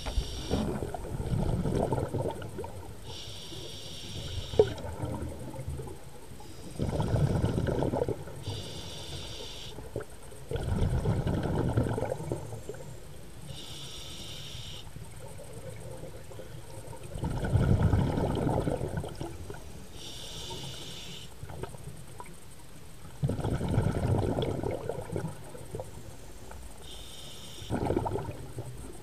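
Scuba diver breathing through a regulator underwater: a short hissing inhale through the demand valve, then a longer rumbling gush of exhaust bubbles, repeating about every six seconds.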